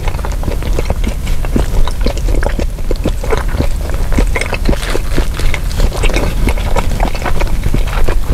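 A man chewing a mouthful of roast beef grilled cheese sandwich close to the microphone: a steady run of irregular mouth clicks.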